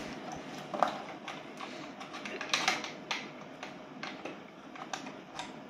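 Scattered light clicks and taps of a cable plug and plastic housing being handled: an Ethernet cable being fitted into the back of a Hikvision indoor intercom monitor.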